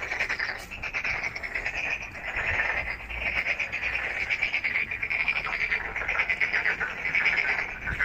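Chorus of frogs calling: many fast, rattling pulsed trills overlapping without a break, swelling and fading in waves.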